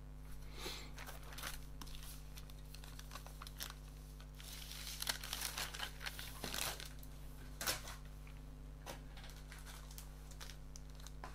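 Clear plastic bag holding a model-kit sprue crinkling as it is handled, in irregular crackles that are loudest in the middle few seconds.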